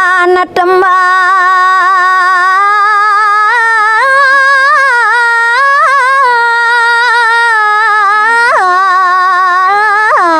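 A woman singing a Balinese geguritan verse in the pupuh Sinom melody, solo voice, drawn out into long held notes with wavering ornaments and quick upward flicks. A short breath breaks the line about half a second in.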